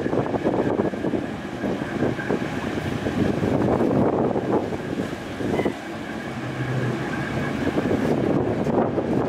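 Strong wind buffeting the microphone over the steady, rushing noise of a fast ferry running through waves, with a faint steady engine whine underneath.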